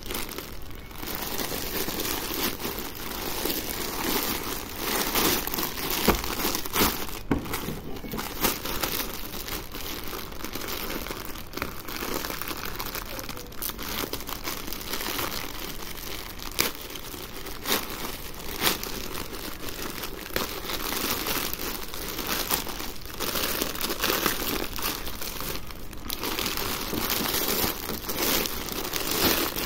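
Thin plastic courier mailer bag crinkling and rustling as hands handle and open it, with frequent sharp crackles of the plastic.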